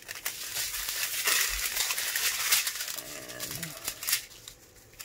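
Crinkling of a strip of thin, clear plastic packets of resin diamond-painting drills as they are handled and laid flat, strongest in the first three seconds. A short hummed vocal sound follows just after the middle.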